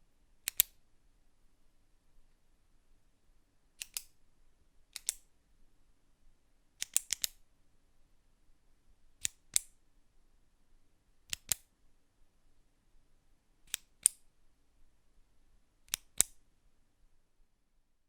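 Retractable pen's push button clicked, sharp high-pitched clicks coming in close pairs about every two seconds, with one quicker run of three or four clicks.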